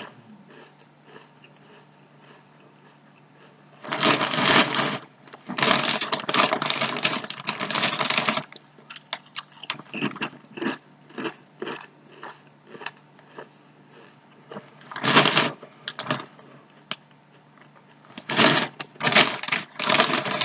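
Sun Chips being crunched and chewed close to the microphone, in bursts of dense crackling: about four seconds in, again for a few seconds after that, briefly around the middle, and again near the end, with softer crunches between.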